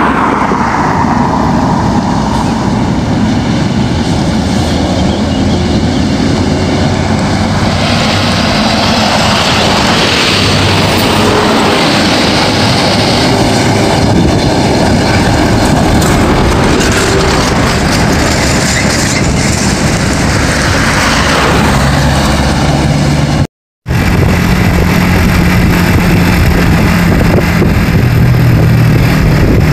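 Large coaches and a truck passing on a road: engine noise and tyre rush that swell and fade as they go by. After a brief dropout about three-quarters through, a steady low engine drone.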